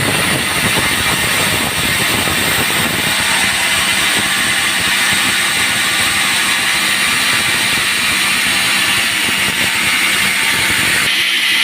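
Band sawmill running, its blade sawing through dry teak timber with a loud, steady, rough noise. Near the end the sound turns to a higher, steadier whine.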